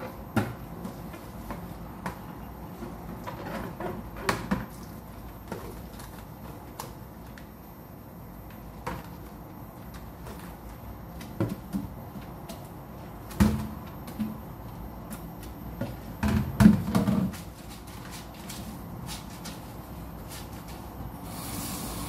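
A plastic washing basin being scrubbed with a sponge and turned in the sink, giving scattered rubs, knocks and thumps, the loudest about 13 and 17 seconds in. Near the end the tap is opened and water starts running.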